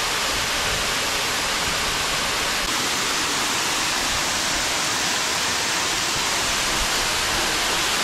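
Waterfall close by: falling water making a steady, loud, even rush with no breaks.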